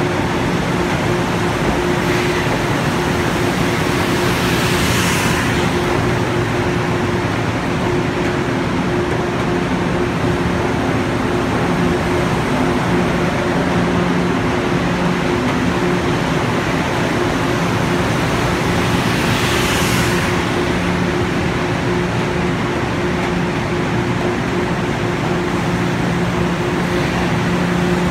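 Budd M3A electric multiple-unit train humming steadily alongside the platform, a constant noise with two held low tones. Two brief hisses come about fifteen seconds apart.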